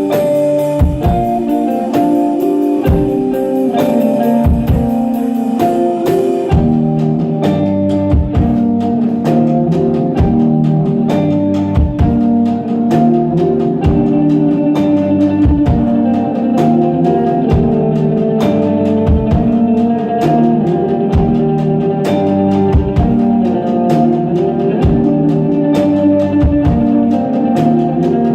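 Live instrumental post-rock: electric guitar playing repeating melodic note patterns over a drum kit. A dense cymbal pattern drops out about six seconds in, leaving the guitar and regular drum hits.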